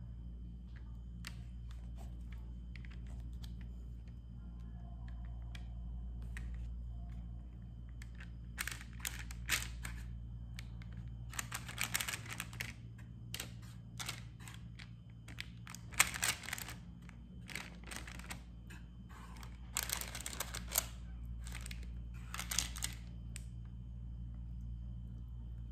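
A wire whisk scraping and tapping against parchment paper and a baking pan as thick cake batter is spread out, in repeated bursts of scraping and clicks from about a third of the way in. A steady low hum runs underneath.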